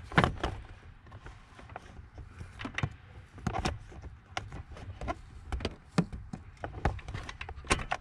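Irregular clicks and knocks of plastic steering-column trim and a rubber ignition-lock boot being handled and worked into place behind a steering wheel.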